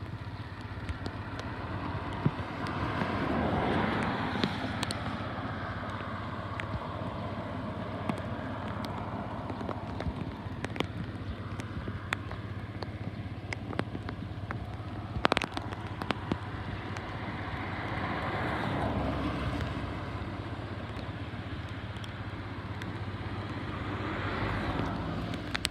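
Street traffic: cars passing by, each swelling and fading, about three times, over a steady rumble, with scattered light clicks.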